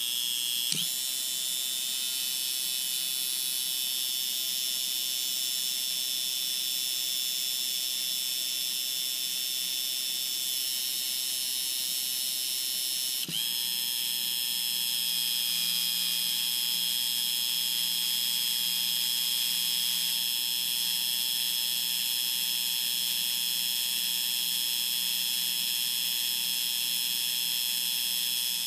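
A pair of small pump motors on a motor driver, running with a steady high-pitched whine. The sound changes abruptly about a second in and again about 13 seconds in, as the controller switches the motors to the next stage of their cycle.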